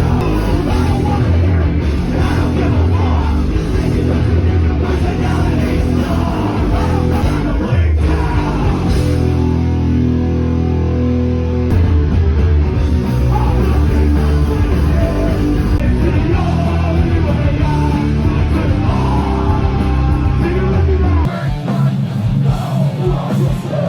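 A live heavy rock band playing loud, with distorted guitars, drums and yelled vocals. About 21 seconds in, the heavy bass drops out abruptly and the music changes.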